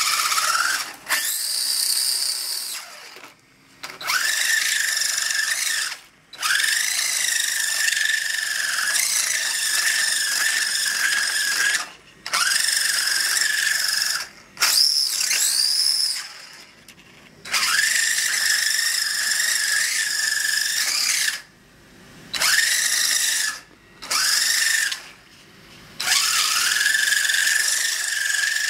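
Homemade RC car's small electric drive motor and gearing whining at high speed. It runs in repeated bursts of one to six seconds with short gaps between them, each burst starting with a quick rising whine as the motor spins up.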